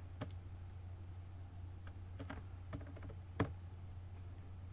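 Laptop keyboard being typed on in short, scattered keystrokes, with one louder key press about three and a half seconds in, over a low steady hum.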